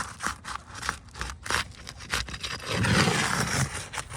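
A tool scraping under an asphalt roof shingle to break its sealant strip: short scratchy scrapes at first, then a louder, longer scrape and tear from about two and a half seconds in.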